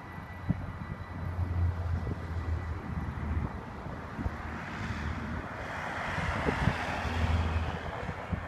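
A small van drives past on the road, its tyre and engine noise swelling to a peak about six to seven seconds in and then easing, over wind buffeting the microphone.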